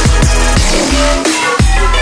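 Electronic dance music with a heavy bass and a driving kick-drum beat, the bass dropping out briefly just before the middle and coming back in.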